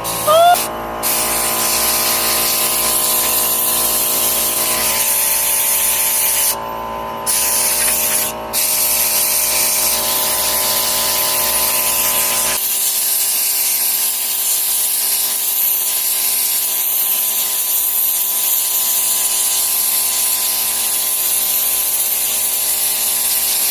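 Small handheld electric power tool, such as a drill, running steadily with a whining hiss. Its pitch rises briefly at the start, and the sound is broken by a few short dropouts.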